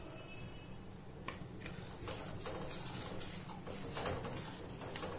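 Wooden spatula stirring and scraping semolina roasting in ghee in a non-stick kadai, in repeated short scratchy strokes about two or three a second, starting about a second in.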